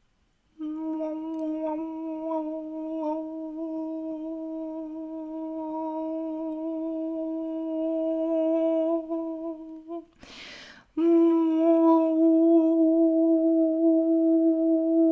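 Vocal toning: a woman's voice holds one long, steady note with rich overtones. About ten seconds in it breaks for a quick, breathy intake of air, then takes up the same note again.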